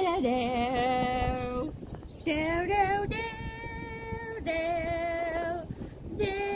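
A woman's voice singing slow, long held notes with vibrato, about four notes with short breaks between them.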